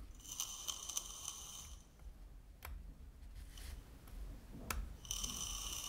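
Faint sizzle of a 0.5-ohm atomizer coil firing on a four-18650 parallel mechanical box mod. It comes in two stretches, about the first two seconds and again from about five seconds in, and cuts out in between because the fire button only makes contact when pressed at the back. Two light clicks fall in the gap.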